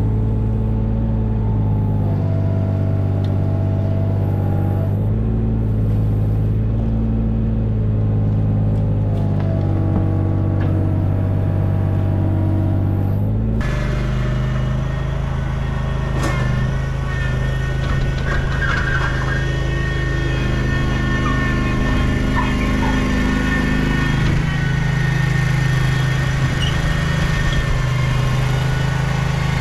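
An engine runs steadily with a low hum, its note stepping up and down now and then as the load changes. The whole sound changes abruptly about thirteen seconds in, then carries on running.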